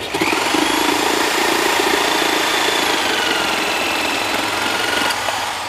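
Bosch GST 8000 E jigsaw cutting through a small wooden beam: the motor whines up as the trigger is pulled, then the blade saws at a steady level for about five seconds before the motor is released and winds down near the end.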